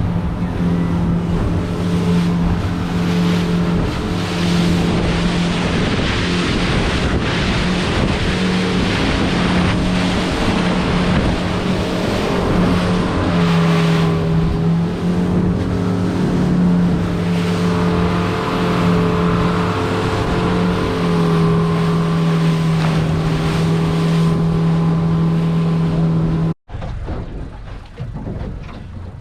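Boat motor running steadily, a constant engine hum, with wind blowing across the microphone. Near the end the sound cuts off abruptly to something quieter.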